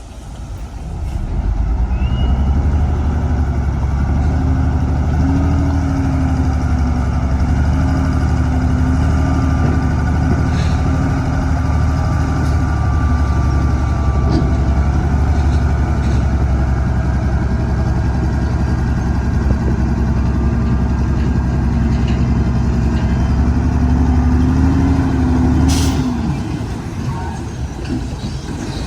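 Heavy earthmoving diesel engine running loud and steady under load. It comes up about two seconds in, its pitch lifts now and then, and it drops away near the end with a short sharp hiss.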